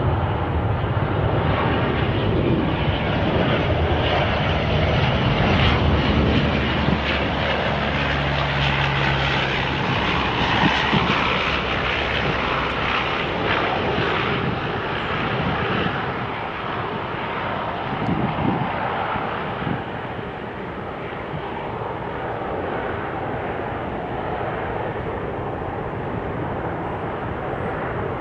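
British Airways Boeing 747-400's four Rolls-Royce RB211 turbofans at takeoff thrust: a loud, steady jet roar as the aircraft lifts off and climbs away. The roar slowly fades over the last third.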